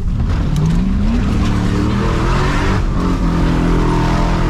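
Pickup truck engine revving up under hard acceleration, its pitch climbing in the first second and a half and then held high and steady, with a rushing noise over it.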